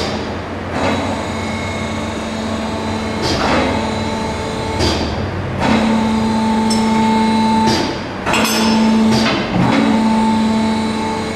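Tonon Simplex loading crane and its metal hooks at work: several sharp metal clanks and knocks over a loud, steady machinery noise. A motor hum comes and goes in spells of a second or two in the second half, as the crane drive runs.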